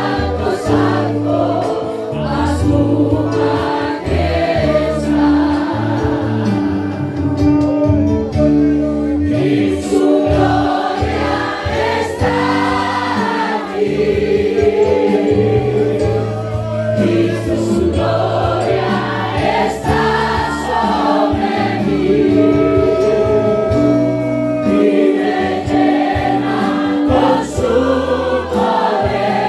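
Church worship music: a group of voices singing a gospel worship song over instrumental accompaniment with held chords and a bass line.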